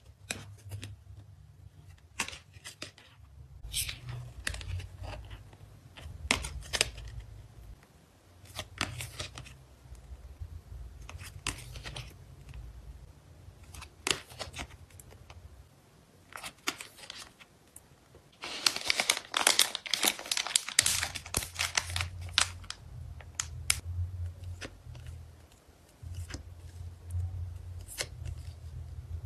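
Photocard packing being handled by hand: plastic and paper wrapping crinkling and tearing in scattered short rustles and taps, with a longer stretch of dense crinkling about two-thirds of the way in, over a low hum.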